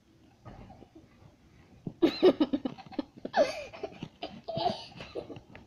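A child laughing in short, choppy bursts, starting about two seconds in.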